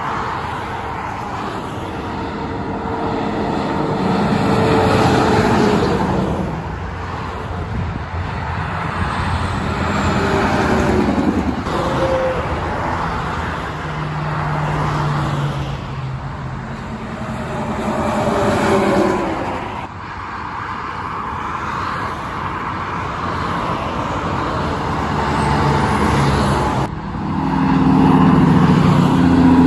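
Interstate highway traffic: a steady tyre roar with diesel semi-truck engines swelling and fading as the trucks pass one after another, their engine tones dropping in pitch as they go by. The loudest pass comes near the end.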